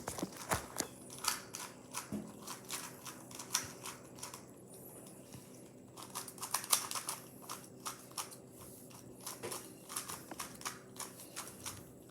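Rapid plastic clicking of a GAN speed cube being turned during a solve, in quick flurries of turns with short pauses between them.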